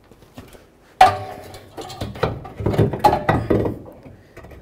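A new front strut-and-spring assembly being worked up into the strut tower, metal on metal: a sharp knock about a second in, then a run of knocks and clattering.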